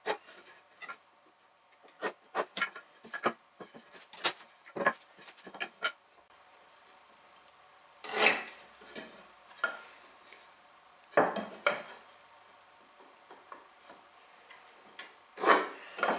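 Marking knife scoring lines into wooden boards along a metal square. A quick run of ticks and scratches comes first, then a few longer scrapes from about eight seconds in, with light metallic clinks of the square being set down.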